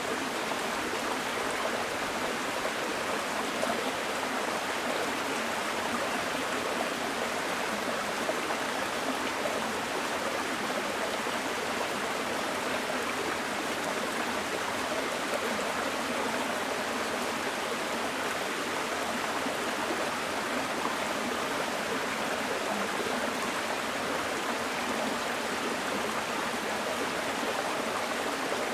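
A small mountain stream running over rocks: a steady rushing and babbling of water with no change.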